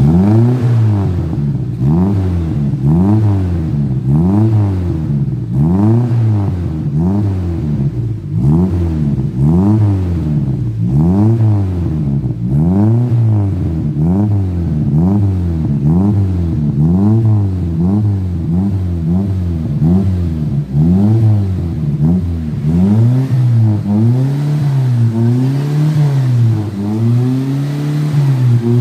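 Toyota Kijang engine revved through a freshly fitted aftermarket exhaust with a plain straight-through muffler and a resonator, which are meant to give a mellow, less noisy tone. The throttle is blipped over and over, so the revs rise and fall about once a second. After about twenty seconds the revs swing lower and more evenly.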